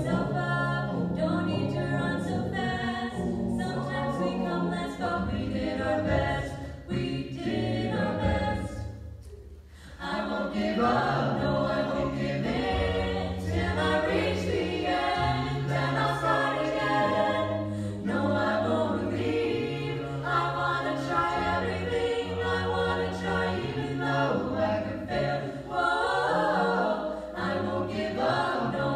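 A small mixed vocal ensemble of men and women singing a cappella in close harmony over a low sung bass line. The singing breaks off briefly about nine seconds in, then comes back in full.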